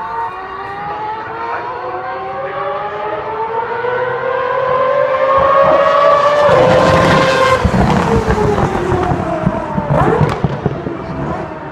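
Mazda four-rotor rotary racing engine in a Group C prototype, climbing steadily in pitch under acceleration. It grows loud as the car passes at about seven seconds, then drops in pitch as it moves away.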